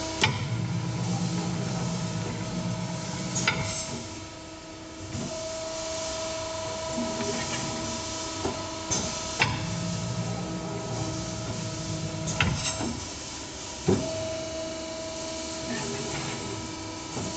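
Eight-tube evaporator tube bending machine at work, bending metal tubes into serpentine coils. A low motor hum swells for a few seconds at a time over a steady machine whine, and several sharp clacks mark the clamps and pneumatic cylinders working between bends.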